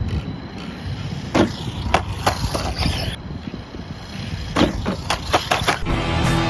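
Wind rumbling on an unshielded microphone, with several sharp clicks and knocks scattered through it. Music comes in near the end.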